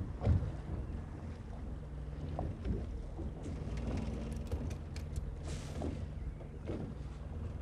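Boat motor running at a steady pitch, with a few sharp clicks about halfway through.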